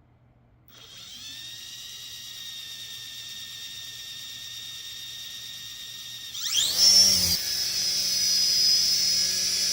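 Small electric toy RC helicopter's motors and rotors starting up with a steady whine about a second in. About six seconds in, the whine sweeps up in pitch and grows much louder as it spools up for takeoff, then holds steady.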